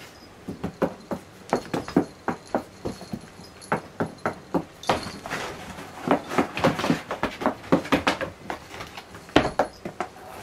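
Kitten scrambling and pouncing in a cardboard box: a quick run of thumps and scratches of paws on cardboard, thickening into a dense patch of scratching and scuffling about halfway through, with one sharp knock near the end.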